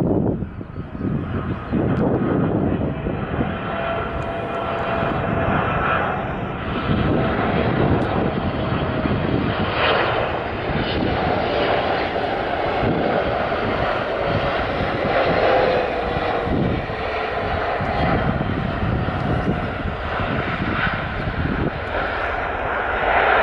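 Jet airliner's engines running, a loud, steady noise, with a whine that falls in pitch about two-thirds of the way through.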